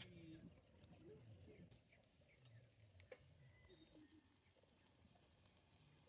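Near silence: faint outdoor rural ambience, with a steady faint high tone, a few soft clicks and a few faint animal chirps.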